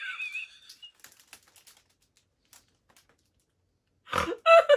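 Faint clicks and crinkles of a clear plastic blister pack being handled, then about four seconds in a sudden loud burst of a woman's high-pitched laughter.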